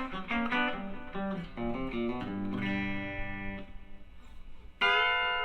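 Palir Titan Telecaster electric guitar playing a quick country-style run of single notes. It settles on a chord that rings out and fades, then a sharp chord is struck near the end.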